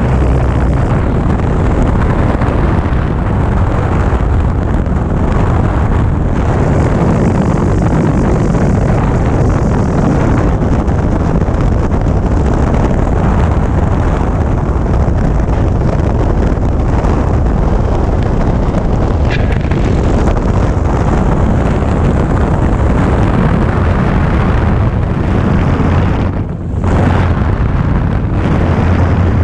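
Light airplane's engine and propeller running hard in low flight, heard from its tail under heavy wind rush on the microphone. The sound dips briefly near the end, then comes back.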